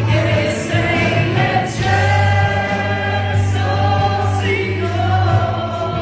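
A choir singing a Christian song over a steady instrumental backing, with held notes that change about every second or so.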